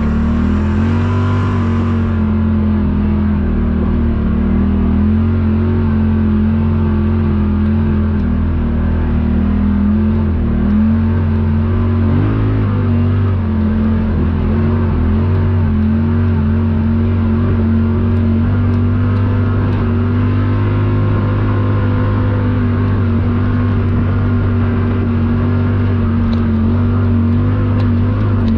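Yamaha RMAX 1000 side-by-side's parallel-twin engine running steadily under load at a nearly constant pitch as it crawls up a rough trail climb.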